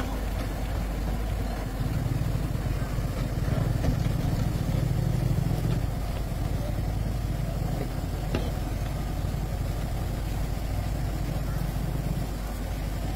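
An engine running steadily at idle, a little louder from about two seconds in until about six seconds in.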